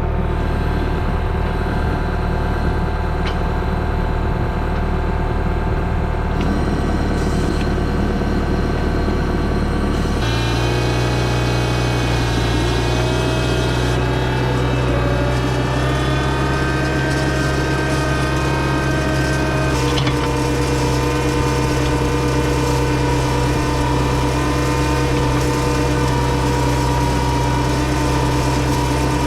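John Deere 6110 tractor's diesel engine running steadily while driving out with a hay rake in tow. The engine note changes about ten seconds in, taking on a stronger, steady low hum.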